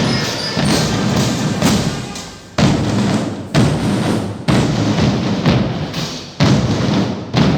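Percussion music: drums playing a steady beat, with a heavy stroke about once a second and lighter strokes between.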